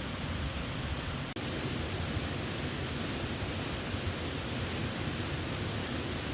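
Steady rushing of a waterfall, cut off for a split second about a second and a half in.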